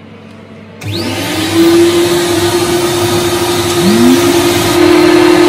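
Twin vacuum motors of an Ashbys Enforcer carpet cleaning machine switched on one after the other: the first spins up with a rising whine about a second in, the second joins about four seconds in, and both then run loud and steady. They are drawing dry air through the open recovery tank to dry the motors out.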